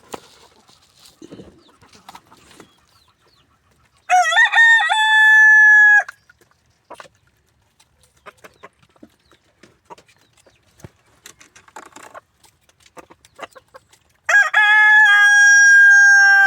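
Rooster crowing twice, each crow a loud held call of about two seconds, the second starting about ten seconds after the first. Faint scattered clicks and soft clucking in between.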